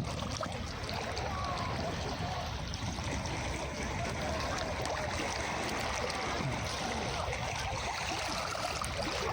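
Calm sea waves washing steadily onto a beach.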